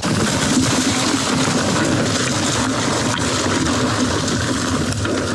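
Steady rushing riding noise from a Commencal Meta TR mountain bike descending a leaf-covered dirt trail: wind on the camera microphone and tyres rolling over dirt and leaf litter. It starts suddenly and holds level.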